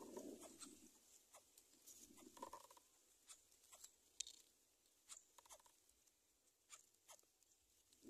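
Greater coucal at its nest, mostly near silence: faint scattered ticks and rustles of the nest straw, with a soft low hoot fading out just after the start and another brief one about two and a half seconds in.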